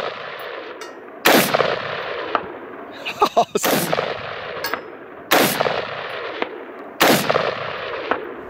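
Black Rain Ordnance BRO Scout AR-15 with its muzzle brake, fired four times in slow aimed succession about two seconds apart. Each sharp shot is followed by a long echo.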